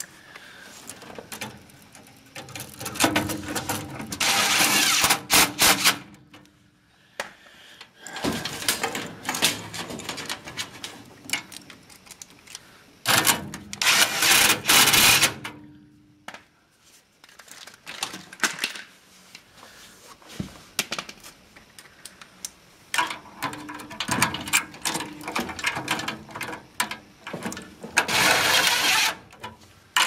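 Handling noise from work inside a furnace cabinet: scattered clicks and taps with several louder rustling, scraping stretches of a second or two, as wires and parts are moved around the control board.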